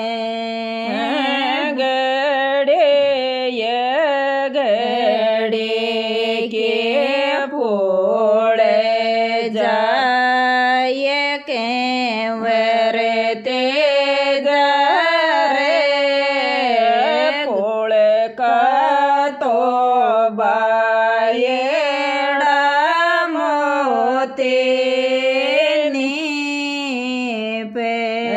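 A woman singing a Rajasthani Tejaji folk song in long held notes that glide up and down, with a few short breaks between phrases.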